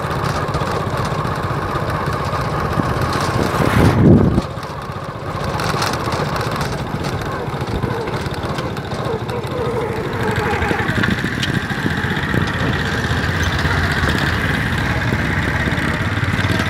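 Small engine running steadily close by, with a brief louder low rumble about four seconds in.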